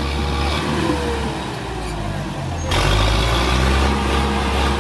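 The diesel engine of a 62 hp ACE tractor runs hard under full load, straining to drag a trolley carrying about 200 quintals of cement bags through mud. It is a steady, deep exhaust note that suddenly turns louder and harsher a little over halfway through. Its exhaust is a tremendous, heavy sound, as if air were let out in the open.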